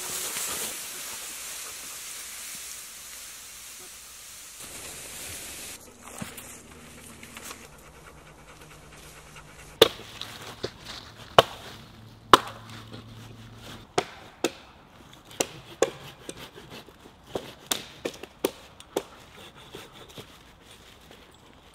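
Leafy branches being dragged and rustled through dry fallen leaves. Then comes an irregular run of sharp wooden cracks and knocks, about one or two a second, as sticks and branches are handled for a shelter.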